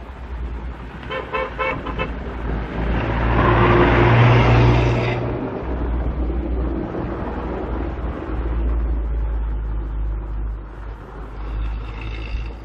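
Outdoor traffic noise over a steady low rumble. A quick run of about four short horn-like toots comes about a second in, then a loud rushing swell peaks a few seconds in and fades, and another short pitched tone comes near the end.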